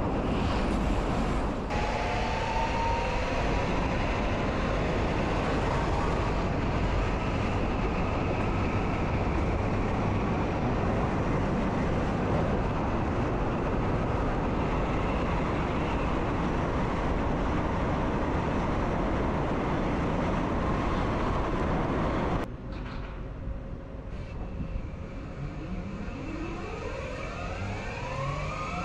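Train running along the track, heard from the driver's cab: a steady rumbling rush of running noise. About 22 seconds in it drops suddenly to a quieter level, and near the end a whine rises in pitch.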